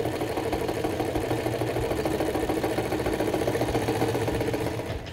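Bourbouze-type electromagnetic motor running steadily on direct current at about 2.5 amps, its electromagnets and contact linkage clattering rapidly as the flywheel turns. The sound drops away just before the end.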